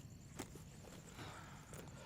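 Crickets chirping steadily. A single sharp knock comes about half a second in, followed by soft shuffling movement.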